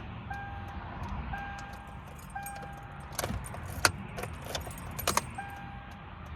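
A car's dashboard warning chime beeping steadily about once a second, with a burst of keys jangling and clicking in the middle, over a low steady rumble.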